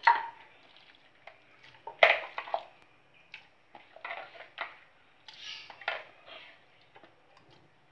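Raw mutton pieces dropped by hand into an empty pressure cooker, making irregular knocks and clatters against the pot. The loudest come right at the start and about two seconds in, with smaller ones later.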